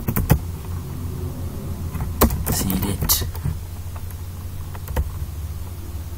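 Steady low hum of background noise with a few sharp clicks scattered through it, computer keyboard keystrokes as text is typed.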